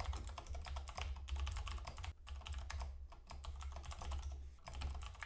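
Typing on a computer keyboard: a quick, uneven run of key clicks with a couple of brief pauses, over a steady low hum.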